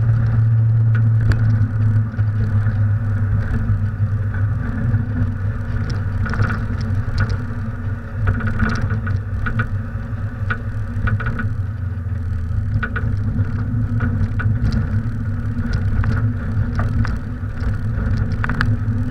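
Mazda MX-5 NA convertible driving with the top down: its four-cylinder engine running at a steady pitch under wind and road noise, with scattered short clicks.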